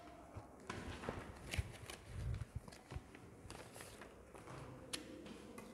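Faint rustling of paper ballots being handled, with scattered light taps and clicks.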